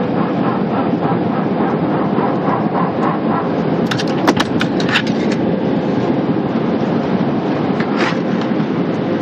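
Airbus A319 on its takeoff roll: the steady roar of the jet engines over the rumble of the wheels on the runway. There is a faint regular thumping in the first few seconds, a quick run of sharp clicks or rattles about halfway, and one more near the end.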